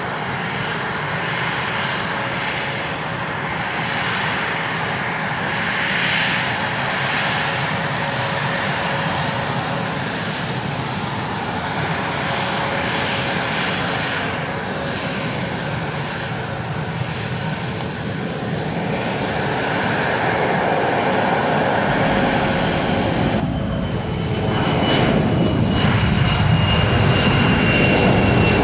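Twin tail-mounted turbofan engines of an RCAF CC-144 Challenger jet running with a steady whine and rush while taxiing. About 23 seconds in, the sound turns to the louder roar of the takeoff roll, with high whining tones that slowly drop in pitch.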